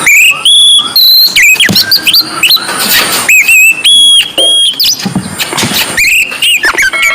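Oriental magpie-robin singing loudly in full song: a quick run of clear whistled notes, rising slurs and short held tones, breaking off about five seconds in and starting again a second later.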